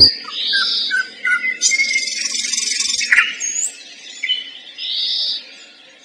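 Common nightingale singing: a few short whistled notes, then a harsh buzzing rattle of over a second about two seconds in, followed by brief separate phrases with pauses between them.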